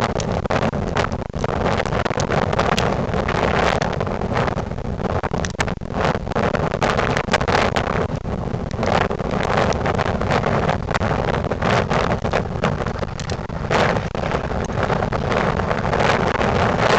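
1998 Ford Crown Victoria Police Interceptor's 4.6-litre V8 running with a leaking exhaust, under heavy, gusty wind noise on the microphone.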